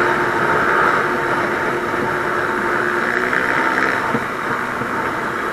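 Motorcycle riding at a steady cruise, its engine and the road and wind noise heard from on the moving bike.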